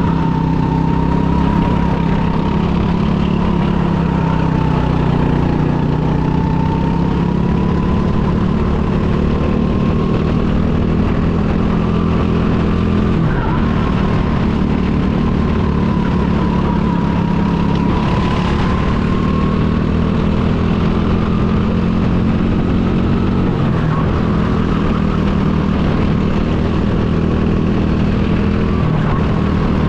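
Go-kart engine running hard and steady, its pitch rising and falling a little, with a thin whine above it.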